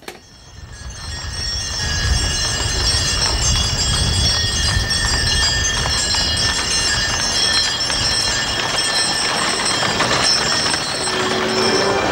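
Horses' hooves clip-clopping on a paved street as a horse-drawn wedding carriage rolls along, with a steady high jingling over it, heard on old VHS camcorder audio. It fades in over the first two seconds.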